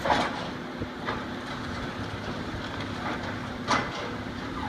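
Heavy tracked demolition machinery, excavators and a crawler bulldozer, working with a steady diesel engine drone. Short metallic clanks and crashes of debris come at the start, about a second in, and near the end.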